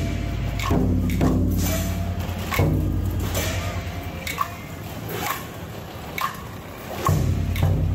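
Music with a steady beat: sharp percussive hits a little under once a second over a deep, held bass line.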